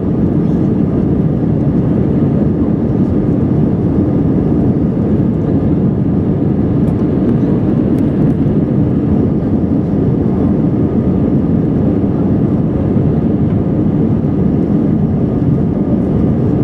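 Steady jet engine and airflow noise inside the cabin of an Airbus A320-200 climbing after takeoff, an even, deep rush with no change in level.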